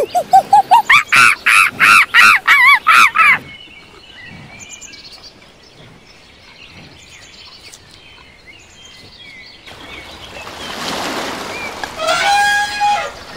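A monkey calling in a rapid series of hoots, about three a second, climbing steadily in pitch, which stops about three seconds in. Faint bird chirps follow. From about ten seconds in, an elephant splashes in water and gives a short trumpet near the end.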